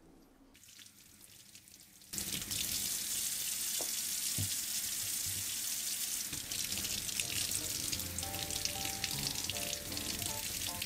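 Kitchen tap running in a steady stream, starting suddenly about two seconds in, the water splashing over a sweet potato as it is washed by hand.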